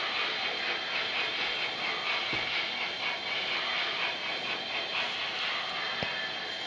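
Steady steam hiss from an Sn3 model steam locomotive's sound system, with two faint low knocks, one about two and a half seconds in and one about six seconds in.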